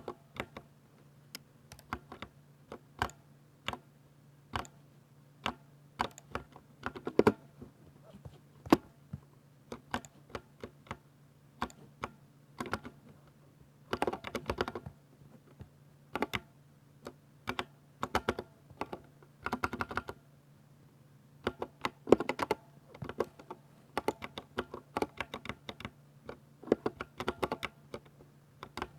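Typing on a 60% mechanical keyboard with Ducky silver linear switches: irregular keystrokes with short flurries of fast strokes now and then.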